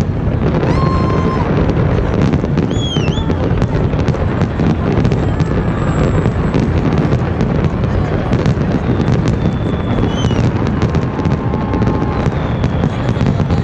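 Fireworks display going off in a continuous barrage: dense crackling and rapid bangs with no let-up, with a few short whistling tones over the top.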